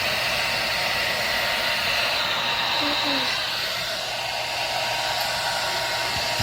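Handheld hair dryer running steadily, a rush of air over a low motor hum, blowing hot air at a heat detector to set it off.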